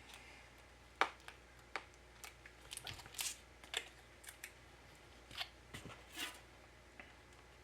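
Faint, irregular small clicks and taps of a MacBook Pro's battery isolator plate being handled and pressed into place over the battery connector, the sharpest click about a second in.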